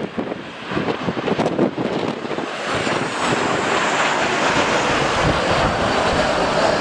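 Airliner's jet engines passing close by: the noise builds about three seconds in to a steady rush with a faint falling whine. Before that, gusty wind buffets the microphone.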